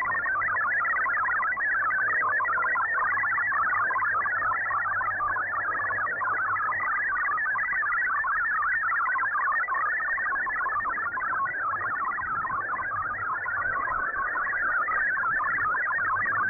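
MFSK digital-mode text signal received off a shortwave broadcast: a rapid, unbroken stream of pure tones hopping in pitch between about 1 and 2 kHz, with a faint low hum beneath.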